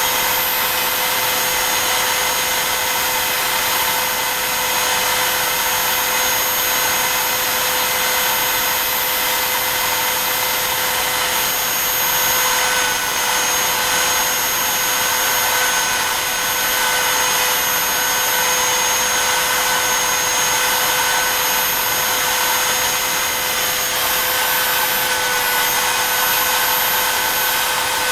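Bob's E3 desktop CNC router running steadily, its spindle motor giving a high whine over a constant rushing hiss as the V-bit carves star shapes into wood. The whine wavers slightly in pitch around halfway and again near the end.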